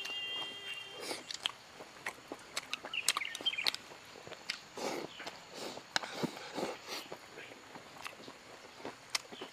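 Close-miked wet chewing and lip-smacking of a person eating a mouthful of rice and eggplant, with small clicks of chopsticks against the bowl.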